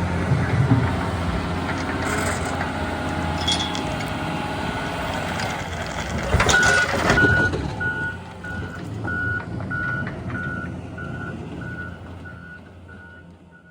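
Heavy construction machine's engine running, with a loud clatter about halfway through. After that its reversing alarm beeps steadily, about one and a half beeps a second, as it backs up, and the sound fades out near the end.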